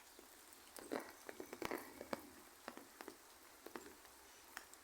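Light rain: scattered raindrops tapping irregularly, with a few louder drops about a second and a half in.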